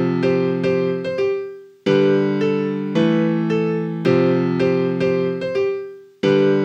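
Piano playing a short phrase: a chord struck about every two seconds, followed by a few lighter notes that ring and fade, the pattern repeating.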